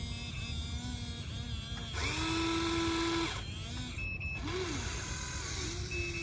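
Electric motors of a Huina radio-controlled excavator whining as its arm and bucket move. A steady whine starts with a quick rise about two seconds in and stops a little after three seconds, a short rising-and-falling whine follows near four and a half seconds, and another steady whine starts near the end.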